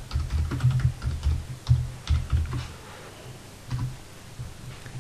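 Typing on a computer keyboard: a quick run of keystrokes for about two and a half seconds, then a few scattered single clicks.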